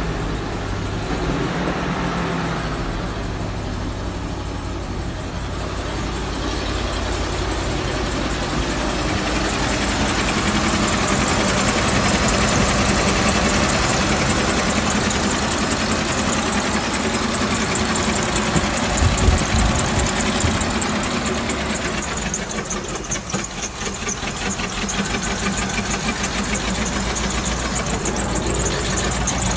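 2003 Land Rover Discovery 2 engine running with a repetitive knock, the engine fault being shown.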